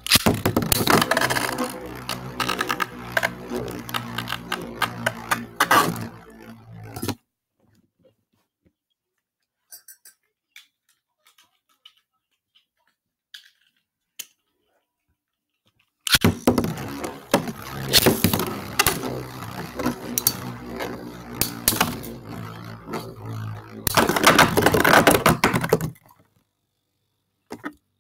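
Beyblade tops spinning and clashing in a plastic stadium: a dense rattle of sharp clacks over a spinning hum. It stops abruptly about seven seconds in, leaving only a few faint ticks. It starts again about sixteen seconds in, grows loudest about eight seconds later, and stops near the end.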